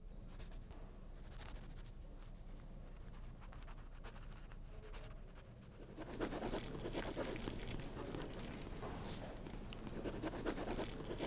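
Pencils scratching on paper as people write, louder from about halfway through, over a steady low room hum.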